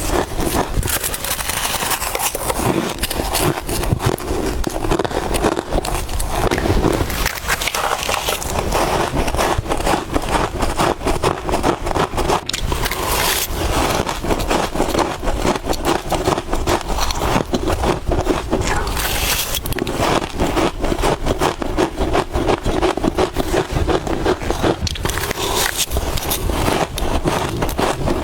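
Soft freezer frost being bitten and chewed close to the microphone: a rapid, unbroken run of crackling crunches.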